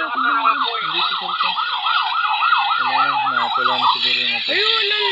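Emergency vehicle siren in a fast yelp, its pitch swinging up and down about four times a second, cutting off about four seconds in.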